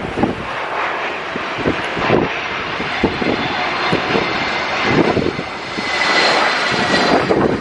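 Jet engines of a British Airways Airbus A320neo airliner, a steady rush with a thin whine that grows louder in the second half. Wind buffets the microphone throughout.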